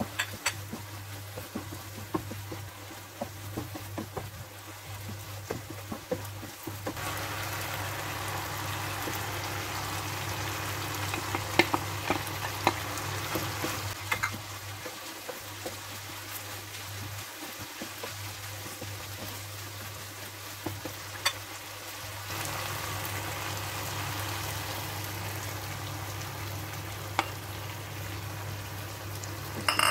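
Minced beef sizzling in a frying pan while a wooden spatula stirs it, with scattered taps and scrapes of the spatula against the pan. A steady low hum runs underneath.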